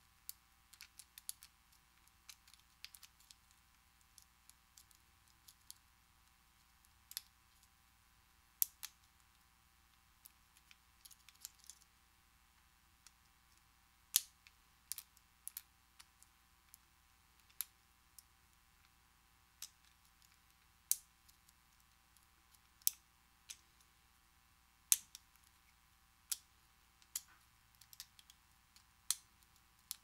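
Steel lock pick clicking against the pin stacks of a Master Lock No. 15 pin-tumbler padlock held under heavy tension while it is single-pin picked: sharp, irregular light clicks, a quick run of them at first, then one every second or two, some much louder than others.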